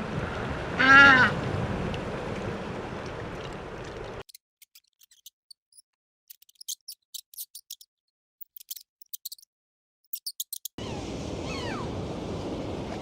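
A run of different animal sounds. About a second in comes one pitched call that rises and falls. From about four seconds, high short chirps or clicks sound over near silence. Near the end come faint sliding whistle-like calls over background noise.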